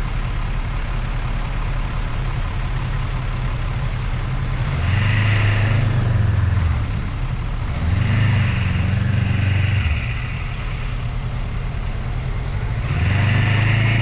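Motorcycle engine running while riding, with steady rumble and wind noise. The throttle is opened three times, about five seconds in, about eight seconds in and near the end, each time with a brief rise and fall in engine pitch.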